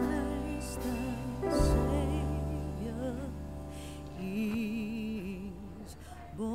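Soft background music: a slow melody with vibrato over held low notes.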